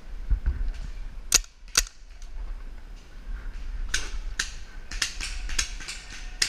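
Paintball markers firing, a run of sharp pops: two loud ones about a second and a half in, then a faster scatter of shots from about four seconds on.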